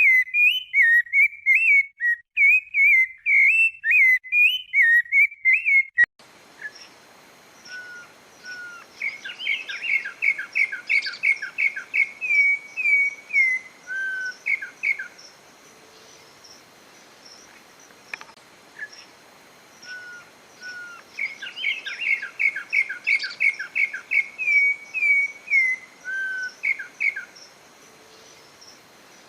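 Songbirds singing: first a loud, continuous whistled warble, then after an abrupt cut a different recording in which a bird twice sings a song of quick repeated whistled notes ending in a few slurred ones.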